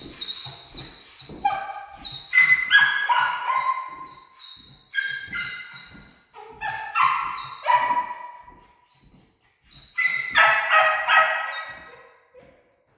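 A dog yipping and whining in high-pitched cries, in several bouts with short pauses between.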